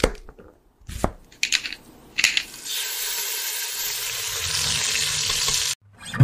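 Sound effects: a few sharp clicks and short swishes, then a steady sizzle like food frying that cuts off suddenly near the end.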